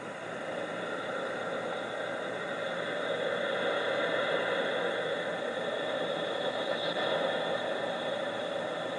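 Steady hiss of band noise and static from a radio receiver's speaker with no station coming through. It swells a little over the first few seconds, then holds.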